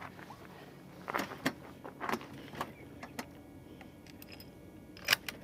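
Scattered light clicks, knocks and rattles of gear being handled on a shooting bench, several in the first three seconds and the sharpest about five seconds in.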